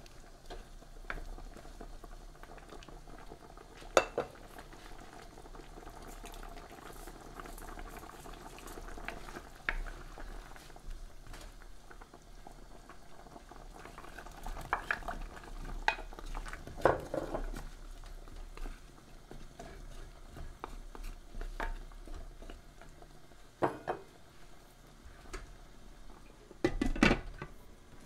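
Chicken simmering and bubbling in sauce in a pan, with occasional knocks of a wooden spatula against the pan as it is stirred. Around the middle, carrot pieces are tipped in from a bowl, and near the end a glass lid clatters onto the pan.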